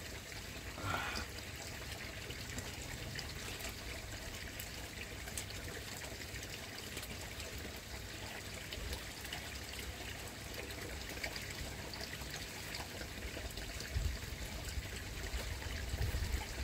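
Steady trickling of water in the koi pond, with a few low rumbles near the end.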